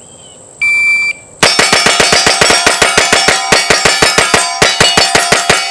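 A shot timer beeps once. About 0.85 s later a gold-plated 2011 pistol in 9mm fires 27 rounds in about four seconds, roughly one shot every 0.15 s. Each hit rings off a single steel plate, and the ringing carries on under the string.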